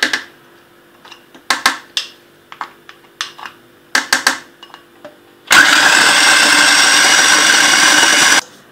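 Electric food processor running, its blades chopping Oreo cookies and butter into crumbs: a loud steady motor-and-blade sound that starts abruptly about five and a half seconds in and stops sharply about three seconds later. Before it, a few light knocks and clicks.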